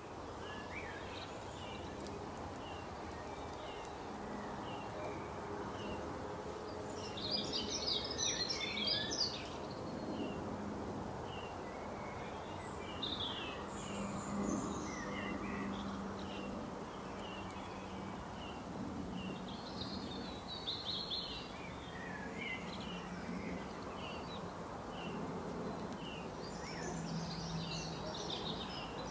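Small birds chirping and twittering: short high chirps repeating every half second or so, with a few bursts of rapid twittering, the loudest about a quarter of the way in, over a steady low hum.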